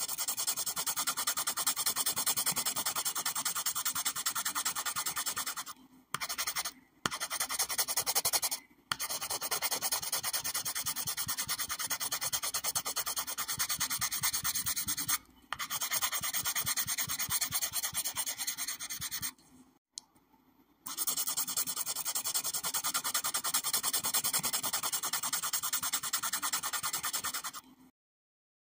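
Felt-tip marker drawing on paper: a steady, dry scratching made of rapid strokes. It stops briefly a few times where the pen lifts, with the longest pause about twenty seconds in.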